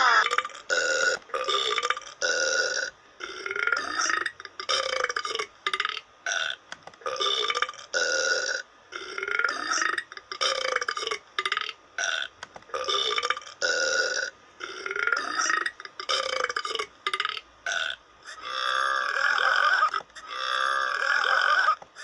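Cartoon belching: a long run of short, loud burps, about one a second with brief gaps between, then two longer drawn-out belches near the end.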